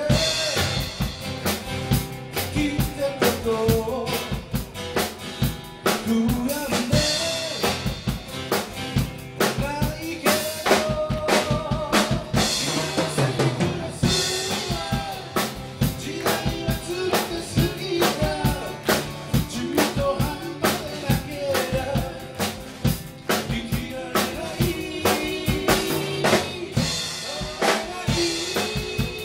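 Live band music: a drum kit keeping a steady beat under strummed guitars, with a melody line over the top.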